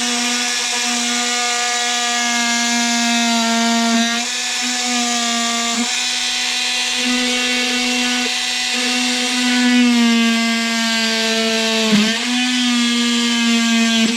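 Small electric reciprocating trim tool running steadily, cutting away hard top trim panel material around the striker hole. Its whine dips briefly in pitch as it bites, about four, six and twelve seconds in.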